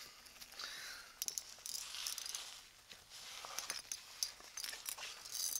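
Scuffs, scrapes and sharp clicks of someone scrambling up gritstone rocks, with rubbing handling noise from the hand-held camera.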